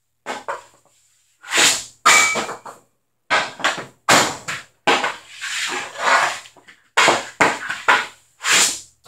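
A CCM Heat street hockey stick taking repeated shots on a concrete floor: a quick, irregular series of sharp cracks and clattering hits as the blade slaps the floor and the shots strike the net and wall. The shots ring briefly in the bare basement room.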